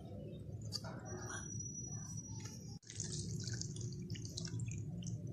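Cultured cream sloshing and dripping in a metal pan as it is swirled round by hand, churning it into butter, over a steady low hum. The sound cuts out for a moment about three seconds in.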